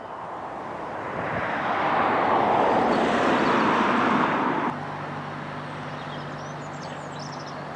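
A vehicle passing close by: its noise builds over about two seconds, holds, then cuts off abruptly a little past halfway. A quieter steady low hum follows.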